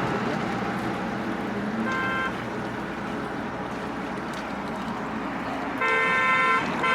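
Road traffic running steadily, with a vehicle horn honking: one short toot about two seconds in, then a longer honk near the end and another short one as it closes.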